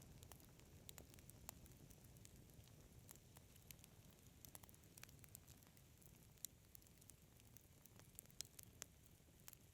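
Wood fire crackling faintly: scattered sharp pops and snaps at irregular intervals over a low, steady rumble of burning.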